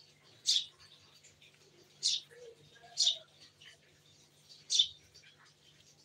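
Pet parakeet giving four short, sharp, shrill calls, spaced irregularly about a second or more apart.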